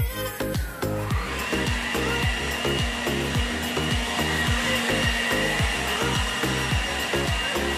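Handheld electric leaf blower running steadily with a high whine, starting about a second in, over background electronic music with a steady beat.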